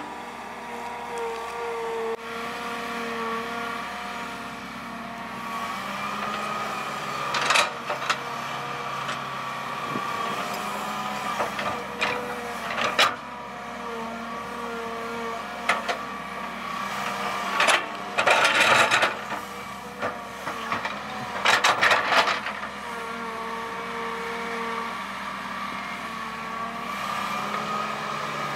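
Hitachi hydraulic excavator running under load, its engine and hydraulic pump giving a steady whine that shifts in pitch as the boom and bucket move. Several times the bucket clanks and crunches through the soil, the longest bursts a little past the middle.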